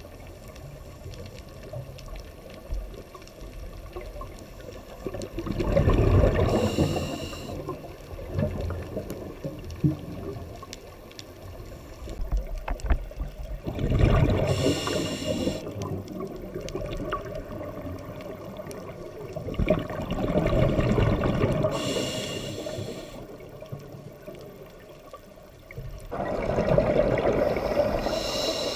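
A scuba diver's exhalations through the regulator underwater: a loud rush of bubbling about every six or seven seconds, four times, each lasting two to three seconds, with quieter stretches between.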